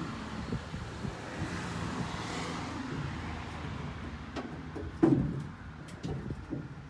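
Steady low hum of a vehicle engine or traffic in the background, with a few sharp knocks and clunks from work on the truck's metal rear body, the loudest about five seconds in.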